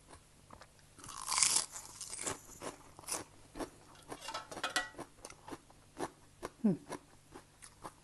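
Close-up crunching of a crisp raw green vegetable stalk: one loud bite about a second in, then steady crunchy chewing.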